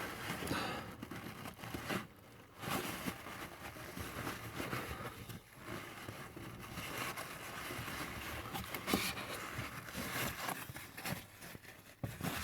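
Kitchen roll rustling and crinkling as it is pressed into a small well to soak up water, with light scrapes and handling knocks.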